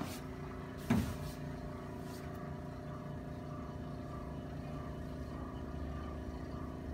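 A steady mechanical hum with one sharp crack or knock about a second in, and a fainter tick near two seconds.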